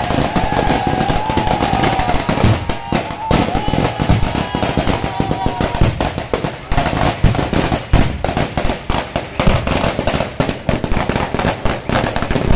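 Ground fireworks and firecrackers going off in a dense, rapid crackle of bangs, with a wavering tone above it for the first half. The bangs grow sharper and more separate in the second half.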